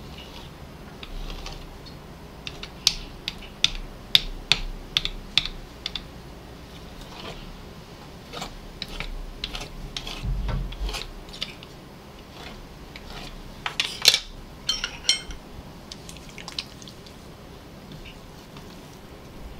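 A hand-held dough cutter slicing a thin sheet of dough into strips on a work surface: a run of short, irregular clicks and taps as the blade meets the board, with a dull thump about ten seconds in.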